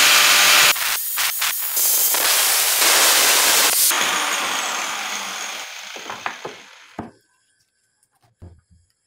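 Angle grinder with a cutting disc cutting metal in loud passes with short breaks. The trigger is then released and the disc winds down with a falling whine, dying away about seven seconds in. A few light knocks follow near the end.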